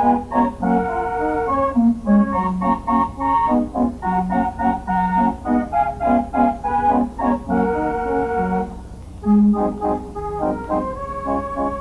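Organ music: short notes and held chords over a repeating bass line, with a brief pause about nine seconds in.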